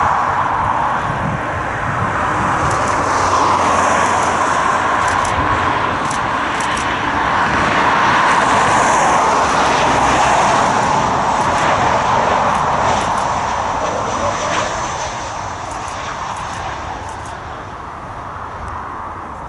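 Twin turbofan engines of an Embraer E-Jet airliner on final approach: a steady jet rush, loudest through the middle, that fades over the last few seconds as the aircraft reaches the runway.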